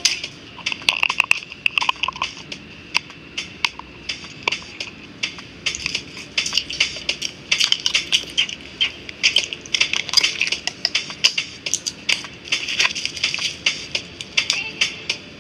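Dense, irregular clicking and scraping of small hard tools against hard parts, typical of hand repair work on a phone.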